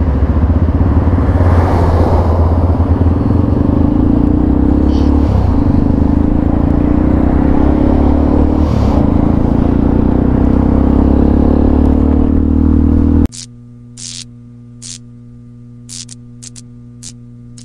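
Motorcycle engine running under way, its pitch rising slowly and steadily, with dense wind and road noise. About thirteen seconds in it cuts off suddenly to a much quieter steady hum broken by a handful of short, sharp ticks.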